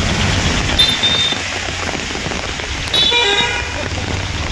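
Vehicle horns sounding over steady traffic noise on a flooded road: short high beeps about a second in, then a louder honk about three seconds in.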